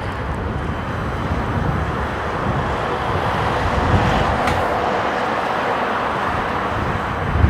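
Steady jet noise from a Boeing 777-300ER's two GE90 engines, swelling slightly in the middle, with strong gusty wind buffeting the microphone underneath.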